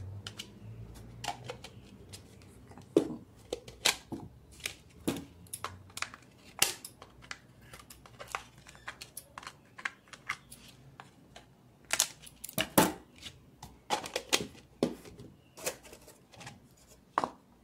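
Scissors cutting around a PET plastic bottle: a string of sharp, irregular snips and clicks from the thin plastic.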